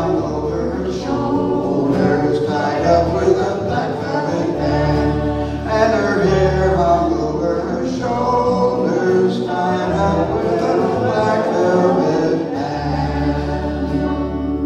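Irish folk ballad near its close: voices singing over instrumental accompaniment with a steady bass line.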